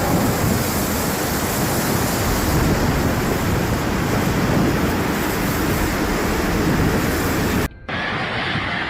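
Loud, steady rushing noise of a severe storm, cutting off suddenly near the end.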